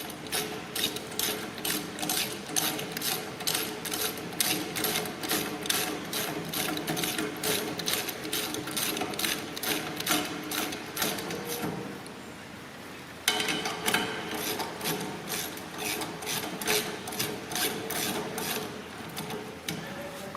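Spanner ratcheting as bolts are tightened: a steady run of sharp clicks, about three a second, with a pause of about a second roughly two-thirds through before the clicking resumes.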